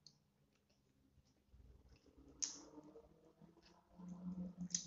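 Close-up eating sounds of a person chewing garlic prawn: faint wet mouth clicks and smacks, with a sharper smack about halfway and another near the end. A low hum joins about four seconds in.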